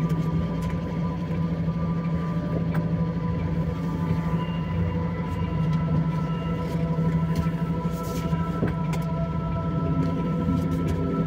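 Truck engine running at low speed as the truck creeps forward, heard from inside the cab as a steady low drone, with a few faint clicks and rattles.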